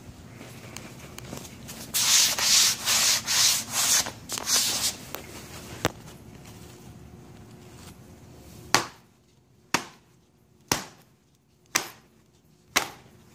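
Clogged pleated paper engine air filter being handled: several rough rubbing strokes, then five sharp knocks about a second apart.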